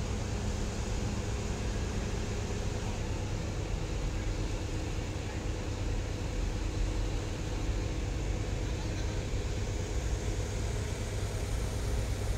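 Heavy vehicle engine running with a steady low rumble as a multi-axle trailer carrying a bridge girder moves slowly.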